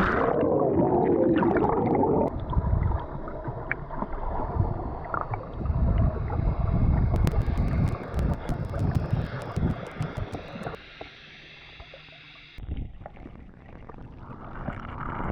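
Muffled underwater sound of swimmers in the water at the anchor: water sloshing and gurgling against the submerged camera. There is a stretch of fine crackling clicks partway through.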